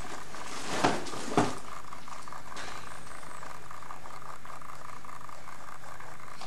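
Steady hiss with a faint hum underneath, broken by two sharp knocks about a second in, half a second apart.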